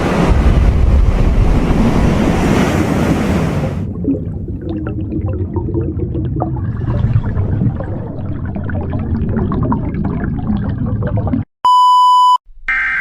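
Loud rumbling roar of a huge wave crashing, a tsunami sound effect. It eases after about four seconds into a lower rumble with crackles and cuts off abruptly near the end. Then comes a short steady beep, and right after it the start of an Emergency Alert System SAME header: a harsh warbling data tone.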